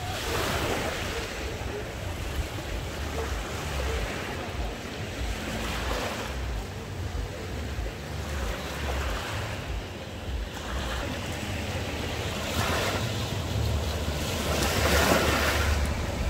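Small sea waves breaking and washing up a beach, the wash swelling every few seconds and loudest near the end, with wind rumbling on the microphone.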